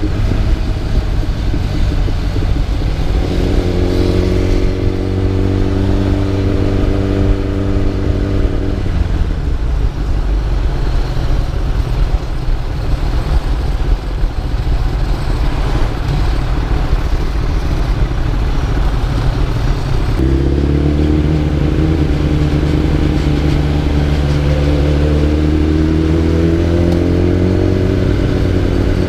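Motorcycle engine under way, its pitch climbing steadily from about 3 seconds in, dropping off near 9 seconds to a steady rush of noise, then climbing again from about 20 seconds in as it accelerates once more.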